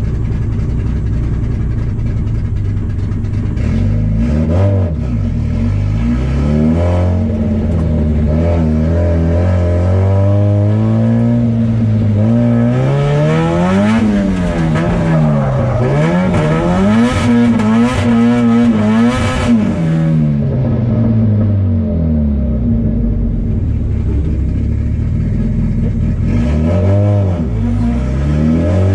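Drift car's engine heard from inside the cabin, revving hard and repeatedly rising and falling in pitch, with the quickest up-and-down swings about halfway through.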